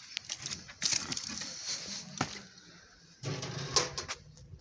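Footsteps and rustling on dry, stony dirt, in scattered short clicks, with a denser low sound about three seconds in.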